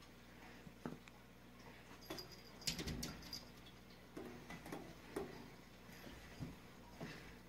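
Faint, scattered taps, scuffs and rustles from a blue heeler puppy moving about on carpet and at a mirrored closet door, with a short cluster of louder knocks about three seconds in.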